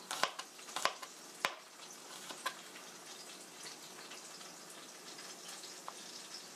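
Kitchen knife slicing garlic cloves on a cutting board: a few sharp taps in the first second and a half and one more a second later, then fainter ticks. Underneath, a steady faint sizzle from chicken frying in a pan.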